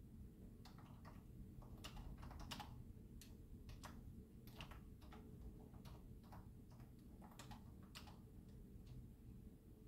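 Typing on a computer keyboard: faint key clicks in quick, irregular runs that stop about a second before the end, over a steady low room hum.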